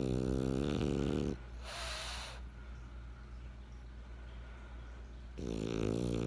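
French bulldog snoring in its sleep: a long, low-pitched snore, then a short breathy puff about two seconds in, and after a quiet pause a second snore begins near the end.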